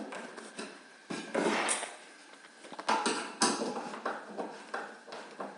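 Irregular clattering knocks and clicks, with a short scraping rustle about a second in and a couple of louder knocks around three seconds in.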